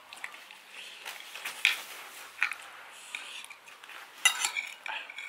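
Metal spoon and fork scraping and clinking against a plate while eating fried rice, with a few sharp clinks, the loudest about four seconds in.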